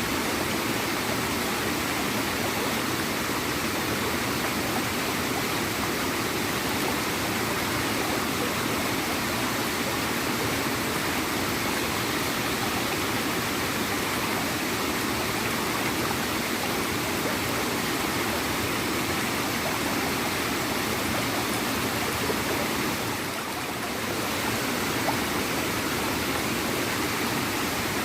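A small waterfall: water flowing and gurgling steadily, with a brief dip in level late on.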